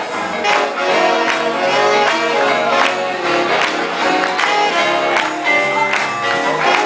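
Live swing big band playing for Lindy Hop dancers: held horn notes over a steady drum beat.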